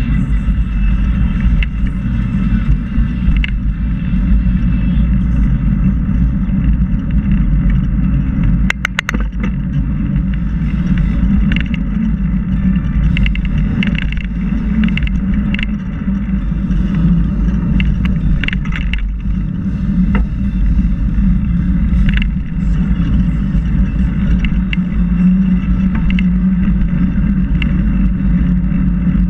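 Bicycle rolling along a paved trail: a steady low rumble of wind on the microphone and tyres on the pavement, with scattered short clicks and rattles, a cluster of them about nine seconds in.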